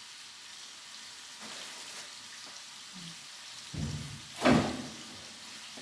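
Chicken pieces frying in olive oil in a pan, a steady sizzle, with a dull thud and then a loud knock about four seconds in.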